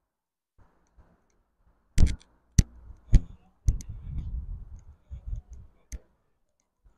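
Footsteps on a pavement: a run of sharp clicks about two a second, with a low rumble underneath for a couple of seconds in the middle.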